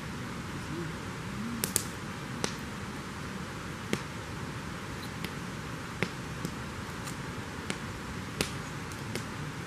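Campfire crackling: about a dozen sharp pops at irregular intervals over a steady hiss.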